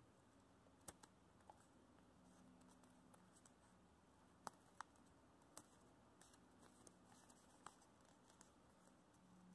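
Faint crackles and clicks of a paper sheet being folded and creased by hand, a handful of sharp little ticks over near silence with a faint low hum.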